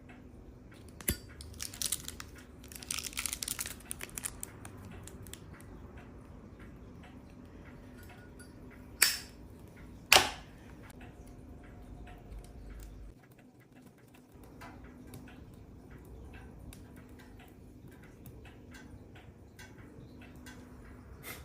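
Wood fire crackling in a wood-burning stove. A flurry of crackles comes a couple of seconds in, and two loud sharp cracks about a second apart come near the middle.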